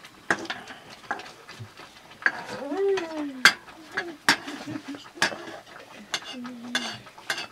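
A metal ladle stirring and scraping in a metal cooking pot, with sharp clinks of the ladle against the pot about once a second. A short voice is heard twice in the background.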